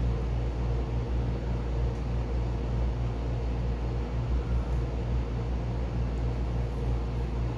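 Steady low mechanical hum with a constant drone, and a few faint crinkles of masking tape being peeled off a painted plastic helmet.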